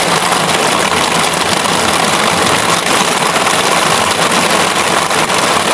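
Steady rain falling on the canvas roof of a circus tent, heard from underneath as an even hiss.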